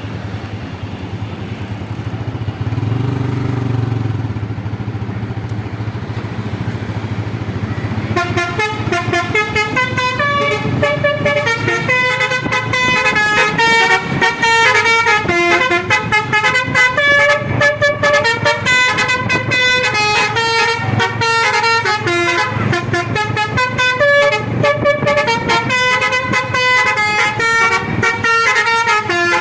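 Tour bus with a low engine rumble for about eight seconds, then its basuri telolet horn plays a fast melody, note after note in quick steps of pitch.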